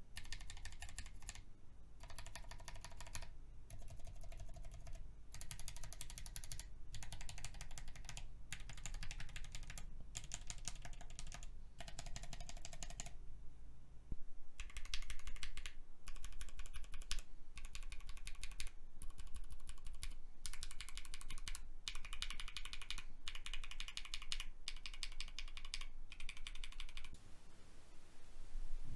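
Typing on a mechanical keyboard fitted with mint switches, which have 68-gram springs and teal polycarbonate housings: runs of keystrokes about a second long with short pauses between, louder and brighter from about halfway.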